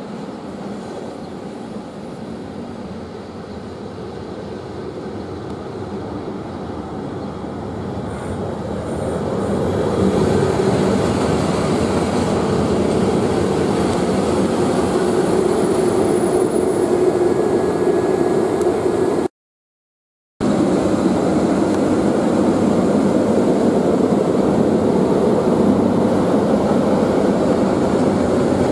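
Class 90 electric locomotive approaching and passing close by at slow speed, its motors and cooling fans giving a steady hum. The hum grows louder over the first ten seconds, then holds. The sound cuts out completely for about a second roughly two-thirds of the way through.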